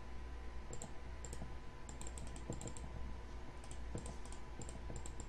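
Small groups of quick, sharp clicks from a computer mouse and keyboard, several groups about a second apart, over a low steady hum.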